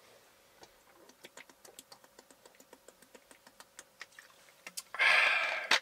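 A man gulping a carbonated soft drink from a plastic bottle: a quick run of small swallowing clicks, about five a second, then a short loud exhale near the end.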